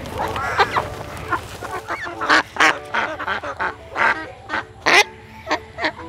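Ducks quacking in quick, short calls as they are handled and lifted out of a sack, the calls coming thick and fast from about two seconds in.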